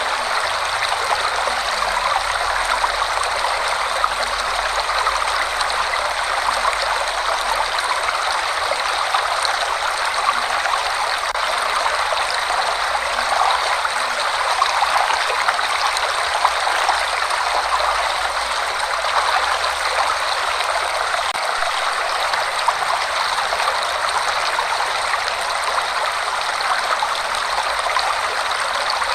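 Waterfall in a forest, water pouring and rushing steadily.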